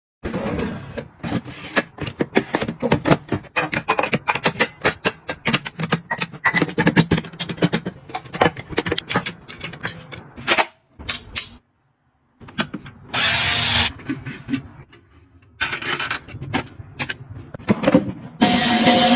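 Kitchen items being handled: a quick run of clicks and clatters for about ten seconds, then, after a short quiet gap, two bursts of rustling, one a little past the middle and one near the end.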